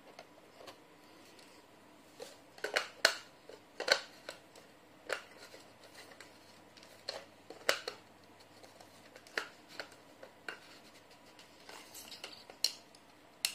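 Sharp plastic clicks and knocks, scattered and irregular, from the housing of a pink mini desktop bead vacuum being handled and pushed together as she tries to refit it after opening it.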